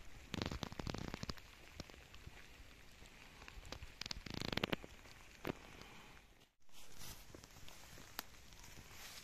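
Faint footsteps and clothing rustle of a hiker walking, in short crackling clusters. The sound cuts out briefly about two-thirds of the way through.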